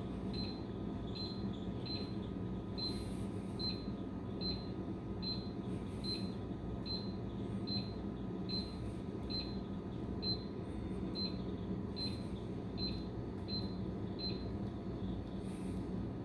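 Vending machine control-board keypad beeping once per key press: short high beeps at an even pace of about one every 0.8 s as the selection price is stepped down a notch at a time. A steady low hum runs underneath.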